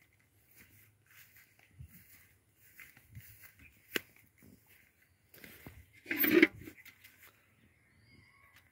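Footsteps crunching through dry grass and fallen leaves, a soft rustle every half second or so, with a sharp click about four seconds in and a louder rustle with a low thud a little after six seconds.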